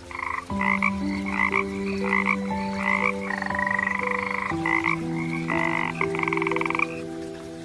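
Frog croaking: a run of short calls, then longer pulsed, rattling trills, over held low notes.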